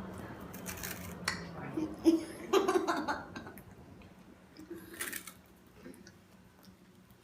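Crunchy rice snacks being bitten and chewed: a few sharp crunches spread over the first five seconds, with brief faint voices.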